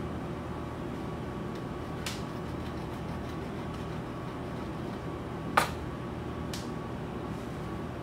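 Steady hum of a kitchen ventilation fan, with three sharp knocks at about two, five and a half and six and a half seconds in, the middle one the loudest.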